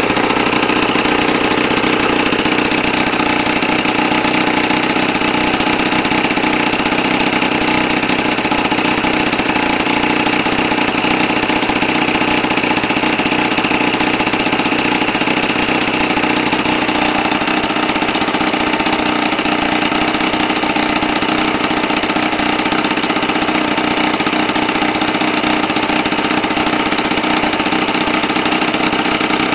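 Enya 90 4C four-stroke glow model airplane engine running at a steady speed with no muffler, its open exhaust loud, turning an APC 14x8 propeller. It has been tuned to run without the muffler and runs smoothly.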